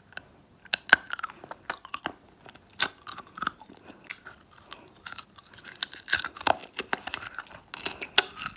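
A hard sour lollipop being bitten and chewed, with many short, irregular crunches as pieces of the candy crack between the teeth.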